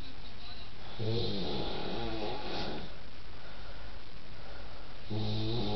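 A sleeping man snoring: one long snore about a second in, lasting nearly two seconds, and another beginning near the end.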